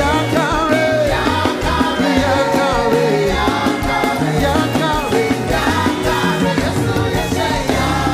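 Upbeat praise song: singing voices over a steady bass line and beat, played without a break.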